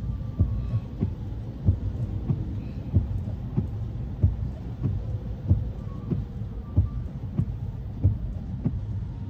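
A steady low hum inside a car, with a soft low thump repeating evenly about every two-thirds of a second.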